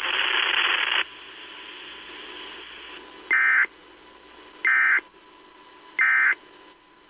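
Weather-radio static for about a second, then three short, identical bursts of digital data tones about a second and a half apart: the EAS end-of-message code sent by NOAA Weather Radio station KEC65, closing its required weekly test.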